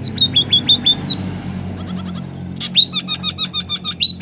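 Emprit jali bird calling in runs of short, sharp chirps that each drop quickly in pitch, about four or five a second. There is a pause of about a second and a half in the middle, then a quicker series of clicking chirps.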